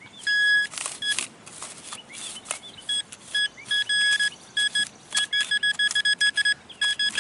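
Metal detector beeping as it is worked over a buried coin: a few separate steady beeps, then a rapid run of short beeps about five seconds in. Short scratchy noises come between the early beeps.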